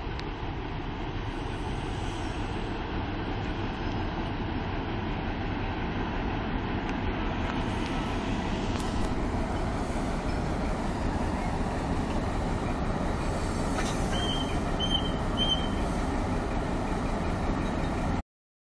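Krupp-built BB304-class diesel-hydraulic locomotive running steadily close by while shunting, a little louder from about halfway. Three short high peeps come in quick succession a little after halfway, and the sound cuts off suddenly just before the end.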